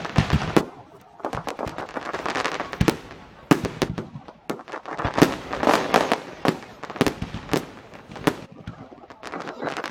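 Fireworks display: shells bursting one after another in sharp bangs, with denser stretches of crackling about one to three seconds in and again around five to six and a half seconds.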